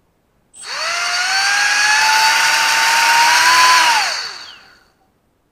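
Small electric fan in a 150 g antweight combat robot spinning up with a quickly rising whine over a rush of air, holding for about three seconds while the pitch creeps higher, then winding down near the end. The fan is pulling air up through the robot to press it down.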